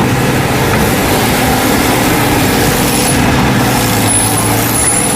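Truck engine running steadily, a loud, even rumble.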